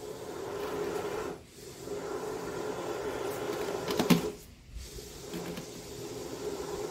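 Can of expanding spray foam dispensing through its straw nozzle into a hole in a cooler's hollow wall, a steady hiss as the foam fills the cavity and pushes air out. It breaks off briefly about a second and a half in and again near five seconds, with a sharp click just after four seconds.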